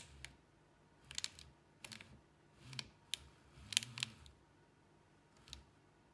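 Brose window-regulator motor from a Mercedes W124 rear door, run in about six short bursts back and forth, each a brief whir with sharp clicks. The unravelled steel cable is being worked loose from the jammed pulley.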